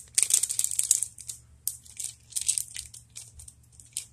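Packaging of a card-game expansion pack crinkling and crackling as it is torn open: a dense rush of crackles in the first second, then scattered crinkles.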